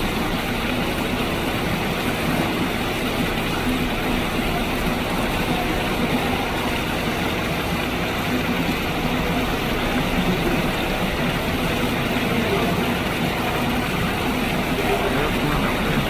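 Steady rushing of a large waterfall, a continuous even roar of falling water.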